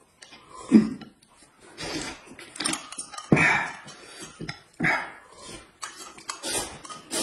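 People eating noisily close to the microphone: a string of irregular slurps, smacks and gulps of a second or less.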